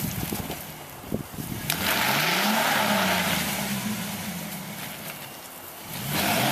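Ford Ranger pickup's engine revving hard twice, easing off between, as the truck, stuck in an icy, muddy rut, tries to drive out. A few knocks come in the first second.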